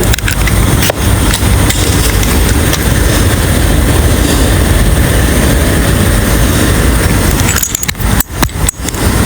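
Car on the move: a steady rumble of road and running noise, heaviest in the low range. It dips out briefly a couple of times near the end.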